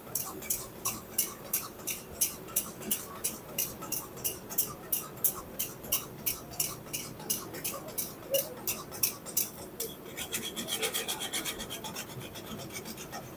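Spatula scraping and stirring in a karahi at about three strokes a second, growing faster about ten seconds in, as yogurt is worked into the mutton.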